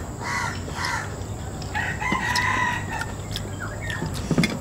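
Rooster crowing: a few short notes in the first second, then one long held note about two seconds in.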